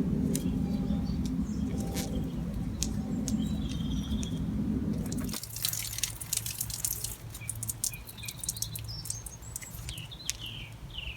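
Water dripping and trickling from a leaking pipe, heard as scattered sharp ticks, over a steady low hum that cuts off about halfway through. Near the end a bird chirps several times in short falling notes.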